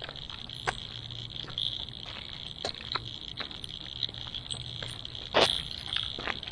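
A frog chorus makes a steady high-pitched background, with scattered crunching footsteps on gravel; the loudest crunch comes about five and a half seconds in.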